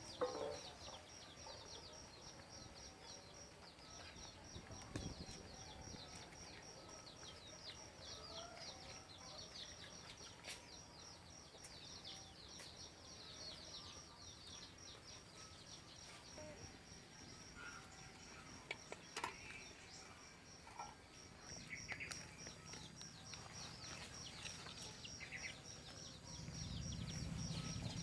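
Rural outdoor ambience: birds chirping in quick, high, falling notes over a steady high-pitched insect trill, with a few faint knocks.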